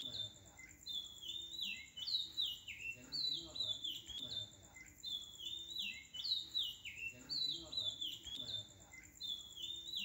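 Birds chirping in repeated quick descending phrases, with a steady high pulsing trill behind them.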